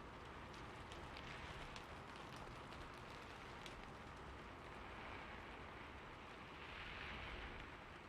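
Rain falling on a rooftop: a quiet, steady hiss with scattered single drop ticks, mostly in the first half, and a brief swell in the hiss near the end.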